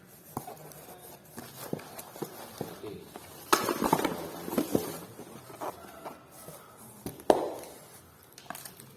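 Packaged Hot Wheels cars being handled and stacked: plastic-and-card packaging rustling, with scattered clicks and taps, a busier stretch of rustling in the middle and a sharp knock near the end.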